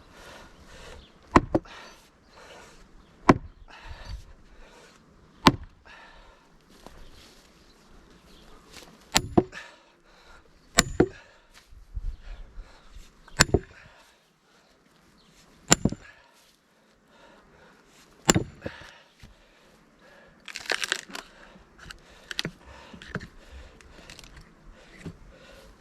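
Heavy splitting-maul and sledge-hammer blows into a large firewood round, one every two to three seconds, several with a short metallic ring. About twenty seconds in comes a quick run of cracking and crunching as the wood gives way.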